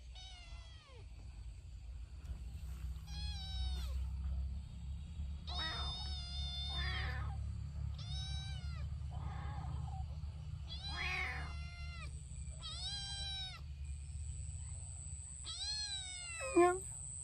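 Kitten meowing over and over, about eight high, plaintive calls a second or two apart, each rising and then falling in pitch. A steady low rumble runs underneath, and a thin high steady tone joins in about two-thirds of the way through.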